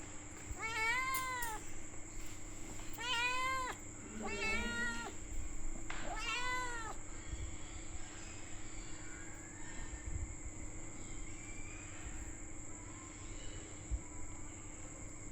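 Kitten meowing four times in the first seven seconds, each call rising and then falling in pitch, followed by a quieter stretch with only faint background sound. A steady high whine and a low hum run under it.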